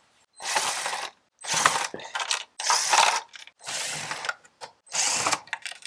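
Cordless power driver running in five short spurts, each under a second, backing screws out of a plastic grille.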